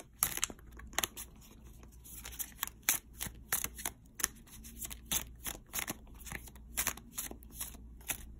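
A deck of tarot cards being shuffled by hand, the card edges giving quick, irregular snaps and clicks, several a second.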